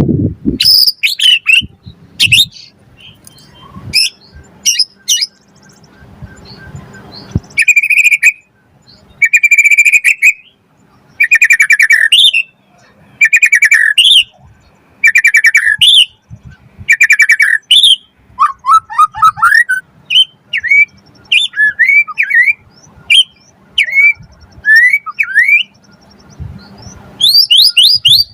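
White-rumped shama singing a varied song. It opens with sharp chirps, then repeats about ten harsh, buzzy notes roughly every second and a half. After that come quick, slurred whistled notes and a rush of rapid high chirps near the end.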